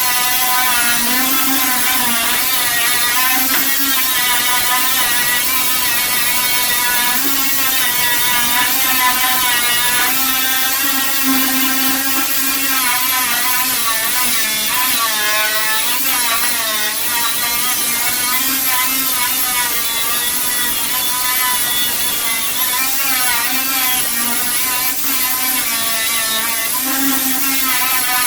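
An air-powered stripping sander running steadily against the truck's paint. Its whine wavers up and down in pitch as the load on the drum changes.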